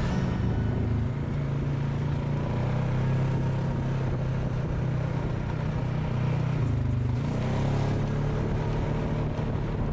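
ATV engine running under way, a steady drone. The engine note drops briefly about two-thirds of the way through and then picks up again, as the rider eases off the throttle and accelerates.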